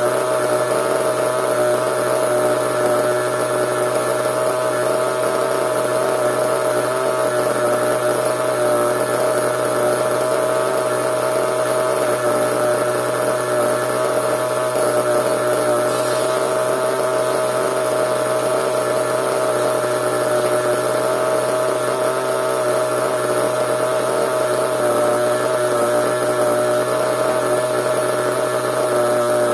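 Small combustion engine of a CEN RC monster truck running at a steady idle, holding one pitch without revving.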